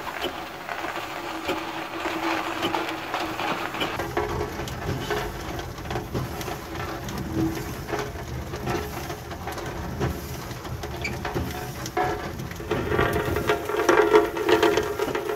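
Aveling & Porter steam road roller running along a stone road, its engine and motion working as the iron rolls travel over freshly laid stone; it grows louder near the end.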